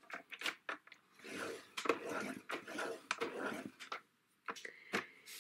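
Scoring blade of a paper trimmer drawn along its rail over a sheet of designer paper: several soft scraping passes in a row, gone over gently so the paper doesn't tear. Light clicks of the paper and trimmer head being set in place come at the start and again near the end.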